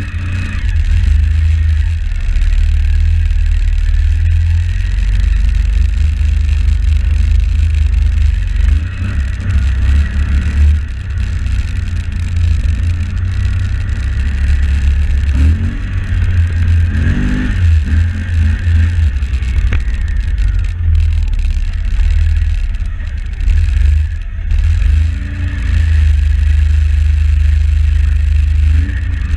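Can-Am X mr 1000R ATV's V-twin engine running as the machine is ridden, with a deep steady rumble. The revs rise and fall briefly about midway and again toward the end.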